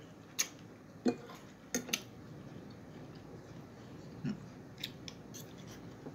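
Cutlery clicking and tapping against a plate while eating: about seven short, sharp clicks scattered over the few seconds, two close together about two seconds in.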